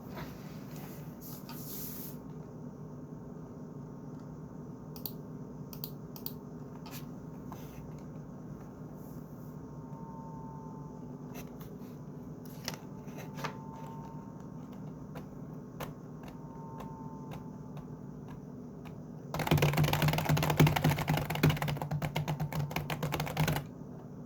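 Computer keyboard being typed on: scattered single key clicks at first, then a fast, loud run of typing lasting about four seconds near the end. A steady low hum runs underneath.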